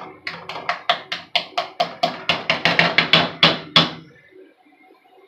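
A plastic spatula knocking against a nonstick frying pan, about five quick taps a second, as it chops and turns scrambled eggs. The taps grow louder, then stop about four seconds in.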